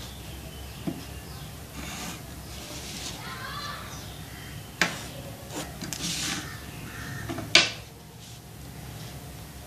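Plastic drawing rulers and a set square being slid over drawing paper and set down on the desk, with a few sharp clacks: a small one about a second in, a louder one near the middle and the loudest about two seconds before the end.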